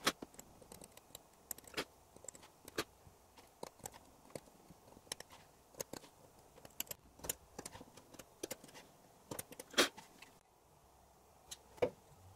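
Craft knife blade trimming small wooden pegs on a handmade wooden gear: an irregular series of light, sharp clicks and snaps as the blade cuts and taps the wood, stopping about ten seconds in, with one more click near the end.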